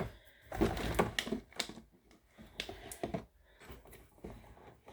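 Food tins being handled and shifted on a cupboard shelf: a run of irregular knocks and clinks, busiest in the first couple of seconds, then sparser.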